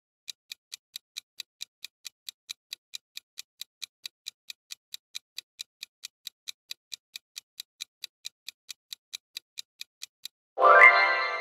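Countdown-timer sound effect: fast, even clock ticking, about four to five ticks a second, which stops about ten seconds in. Right after, a bright chime rings out, the loudest sound, marking time up.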